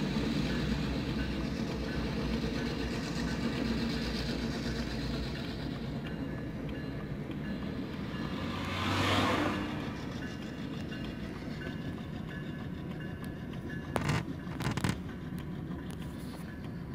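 Steady low engine rumble heard inside a car cabin. A brief whoosh swells and fades about nine seconds in, and a few sharp knocks come near the end.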